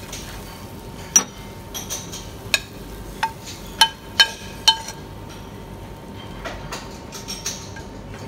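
A metal serving spoon clinking against a ceramic bowl while chickpea curry is spooned in: about six sharp, ringing clinks in the first half, then only a low background.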